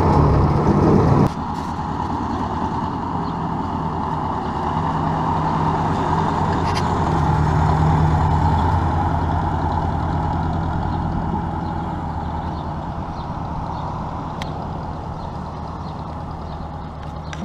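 Ford 600 tractor's four-cylinder engine running after sitting unused for 20 years. About a second in the sound drops abruptly, then the engine grows louder as the tractor drives past and fades as it moves away.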